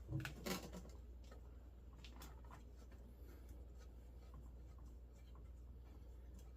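Faint clicks and light scraping of hand work on small hardware, with a few sharper knocks in the first second.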